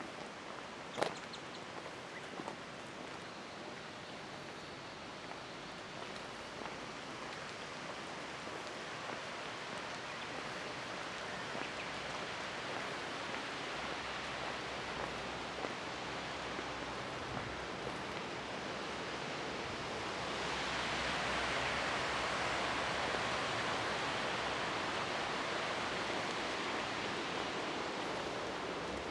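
Steady rushing outdoor background noise with a few faint clicks near the start. It grows slowly louder and steps up about two-thirds of the way through.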